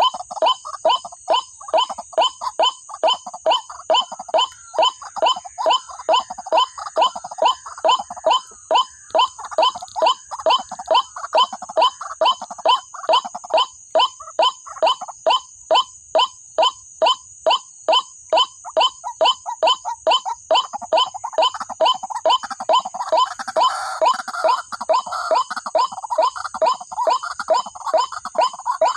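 White-breasted waterhen (ruak-ruak) calls repeated at a steady beat of about three a second: the lure call used to draw the birds in for trapping at night.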